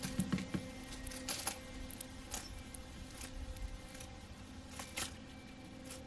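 A northern cardinal and a house sparrow cracking and pecking sunflower seeds from a terracotta dish: irregular sharp clicks and cracks of beaks on seed shells and the dish, a cluster of them in the first second, over a faint steady hum.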